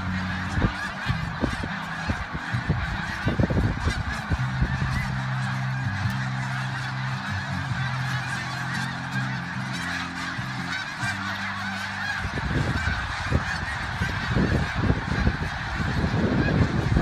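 A massive flock of snow geese, tens of thousands of birds, honking all at once in one dense, unbroken din. Low rumbling thumps break in now and then, several of them near the end.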